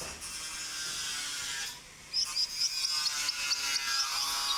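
Konin songbird singing: a hissy, chattering phrase, then from about halfway a fast run of short high-pitched chips, about five a second.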